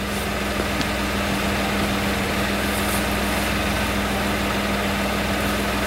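Steady mechanical hum of the snow plow's electric winch running to take up its line and lift the plow, with the truck's engine idling. A faint click sounds about a second in.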